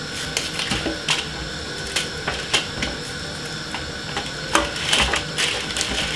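Irregular light clicks and taps of raw white onion layers being snapped apart and set down on a baking tray lined with greaseproof paper.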